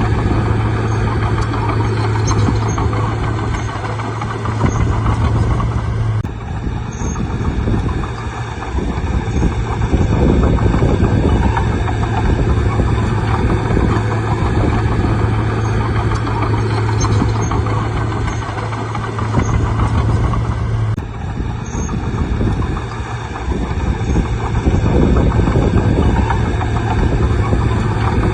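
Bulldozer's diesel engine running with a steady low drone and a rough noise over it. The sound changes abruptly twice, about six seconds in and about twenty-one seconds in.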